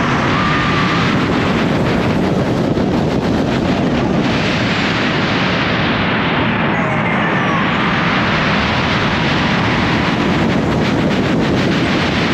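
Loud, steady rush of wind blasting the on-ride microphone, mixed with the running noise of a Bolliger & Mabillard hyper coaster train at full speed on its track.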